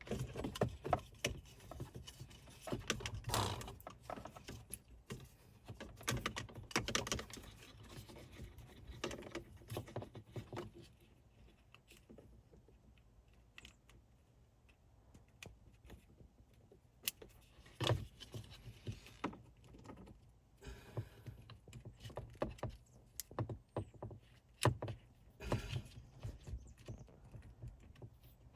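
Irregular clicking, rattling and rustling of small plastic wiring-harness connectors being squeezed and worked loose from a CAN-bus star connector block by hand, with a few sharper clicks now and then.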